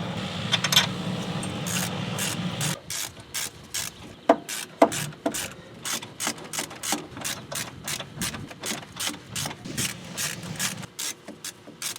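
Hand ratchet wrench clicking in quick runs, several clicks a second, as the bolts of a new front wheel bearing hub are run in. A steady low hum is heard for the first few seconds and stops about three seconds in.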